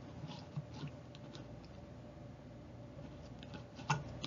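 Quiet room tone with a faint steady hum and a few soft clicks and rustles, then a sharper click near the end.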